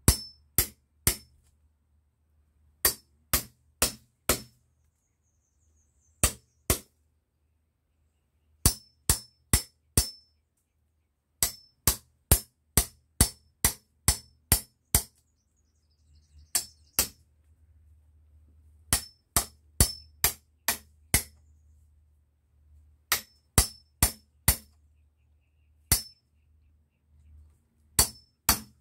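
Hammer driving a metal blade into a cherry plum branch to split the wood, in sharp blows that come in quick bursts of two to eight with short pauses between. Each blow carries a brief metallic ring.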